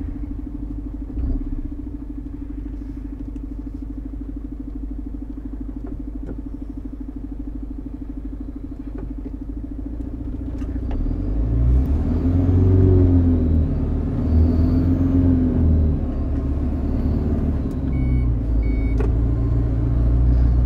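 Iveco Eurocargo lorry's diesel engine heard from the cab: steady for about the first ten seconds, then louder, rising and falling in pitch several times as the lorry accelerates through the gears.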